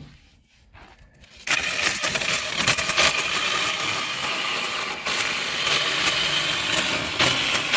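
Saker mini electric chainsaw starting suddenly about a second and a half in and cutting through a small log of stove wood, a steady loud buzz of the chain in the wood.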